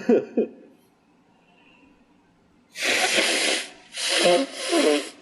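A man sneezing: a long hissing burst about three seconds in, then two shorter ones in quick succession near the end.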